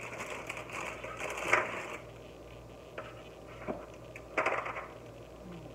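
Graham crackers being handled and set down on an aluminium sheet pan: crackly rustles of the crackers, with a few sharp taps on the metal.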